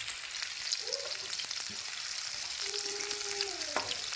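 Red chillies and onion frying in hot oil in a pan: a steady sizzle with frequent small pops and crackles.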